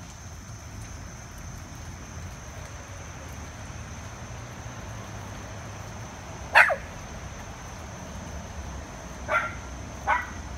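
A dog barks three times: one loud, short bark about two-thirds of the way through, then two quieter barks close together near the end.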